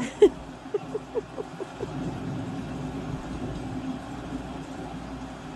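A woman crying: a run of about seven short, catching sobs in the first two seconds, then low, steady crying held back with her hand over her mouth.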